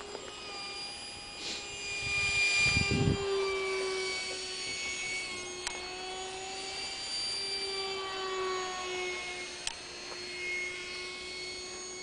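Motor of a radio-controlled Horten flying-wing model whining steadily in flight, its pitch drifting up and down as it passes, a sound its owners liken to a Hoover vacuum cleaner. A brief low rumble about two to three seconds in is the loudest part, and there are two sharp clicks later on.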